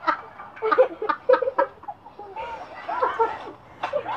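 Chickens clucking, a run of short calls with a pause about halfway and then a longer call, played through a tablet's speaker.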